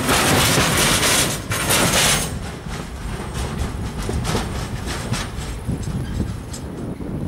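Freight train of flat wagons loaded with steel coils rolling past, wheels rumbling and clacking on the rails. The loud passing noise drops about two seconds in as the last wagons go by, leaving a fainter rumble and clicks that fade as the train draws away.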